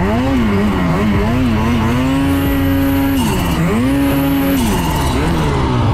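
Turbocharged Lynx snowmobile engine revving as the sled is ridden through deep powder. The pitch climbs and holds high, dips about three and a half seconds in, climbs and holds again, then falls off near the end.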